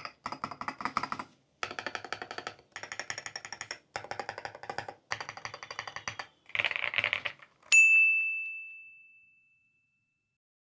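Rapid typing on an Aula F75 HE Hall-effect mechanical keyboard: fast keystrokes in bursts with short pauses. Near the end, a single bright ding rings out and fades over about two seconds.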